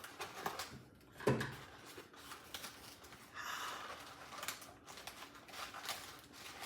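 Rustling, crinkling and clicking of packaging as a plant is unwrapped from a mailed box by hand, with a brief louder sound about a second in and a longer crinkle around the middle.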